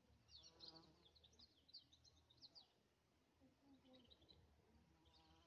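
Faint chirping of small birds: a quick run of high twitters in the first two or three seconds, then a few more short ones later on.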